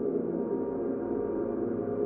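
Science-fiction 'otherworldly' ambient sound effect: a steady, layered drone of many held tones, with nothing above the mid-range.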